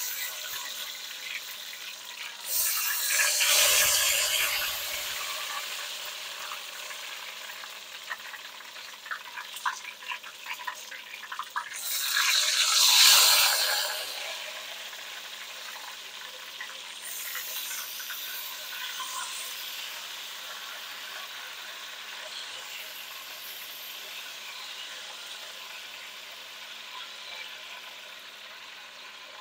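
Watermelon pieces frying in hot oil: a steady sizzle with scattered crackles, swelling twice into louder bursts of sizzling, about three seconds in and again about twelve seconds in, then settling back to a steady sizzle.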